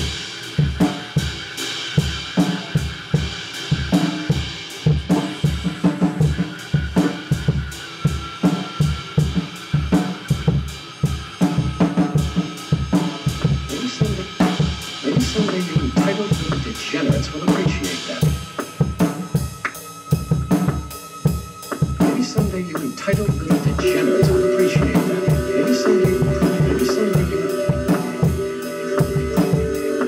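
A live band played loud, led by a drum kit: fast, steady bass-drum and snare hits under ringing cymbals. About four-fifths of the way in, sustained pitched notes come in over the drums and the music gets louder.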